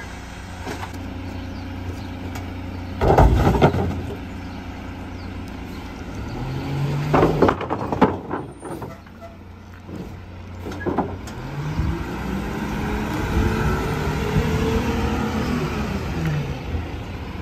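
Loadmaster rear-loader garbage truck's diesel engine idling, with loud crashes of bulk junk being thrown into the rear hopper about three seconds in and again around seven to eight seconds. Later the engine revs up and falls back as the truck pulls ahead.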